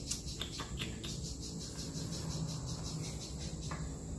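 Insects chirping steadily over a low background hum, with a few light clicks in the first second and one near the end.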